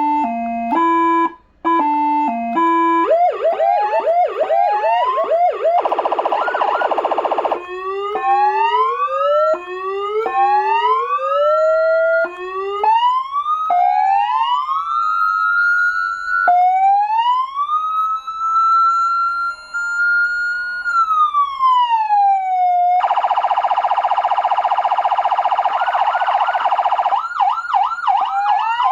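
AS940 400-watt electronic siren sounding through its speaker and switching between tones: a stepped multi-note pattern, a fast yelp, a buzzing horn tone, a run of rising sweeps, then a long wail that climbs, holds and falls, followed by another horn tone and a fast yelp near the end.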